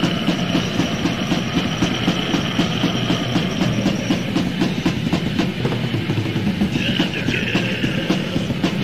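Raw, lo-fi death/black metal demo recording: fast, steady drumming under distorted guitars, with a high sustained tone over the top for the first half that wavers near the end. No vocals.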